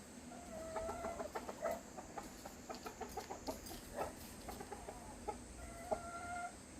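Chickens clucking, with a couple of longer drawn-out calls, among many scattered sharp taps.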